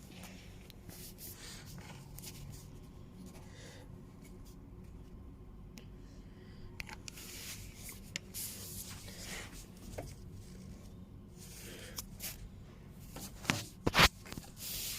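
Handling noises, rubbing and scattered light clicks, over a faint steady low hum, with a few sharp knocks near the end, the loudest about fourteen seconds in.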